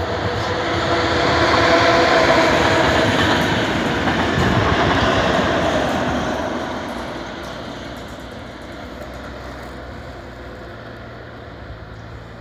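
Diagnostic train with FS E656/E655 electric locomotives at each end pulling out and running past, loudest about two to five seconds in, then fading as it goes away.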